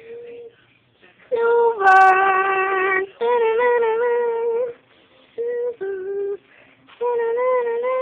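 A voice singing a slow tune in long held notes, stepping between a few pitches, with short breaks between phrases.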